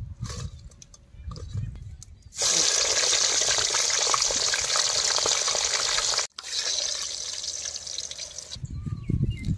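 Hot oil in a wok sizzling hard around a batch of potato slices frying, a loud steady hiss that sets in suddenly about two and a half seconds in. It cuts out for an instant near six seconds, then goes on a little quieter. Before it there are a few faint knocks.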